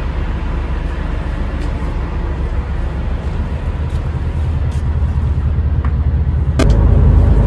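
Large fishing party boat's engine running with a steady low rumble, growing louder toward the end with a sudden step up about six and a half seconds in.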